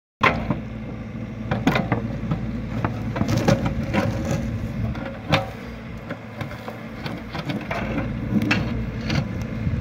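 Bobcat E42 mini excavator running steadily while its bucket pries up and breaks a concrete slab, with repeated sharp cracks and scrapes of concrete; the loudest crack comes about five seconds in.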